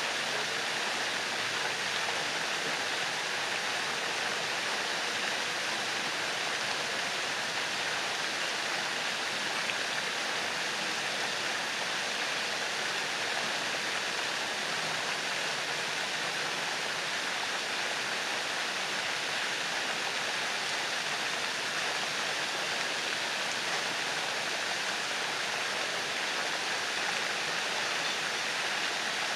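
Pond fountain jets spraying and falling back onto the water: a steady, even hiss of splashing water.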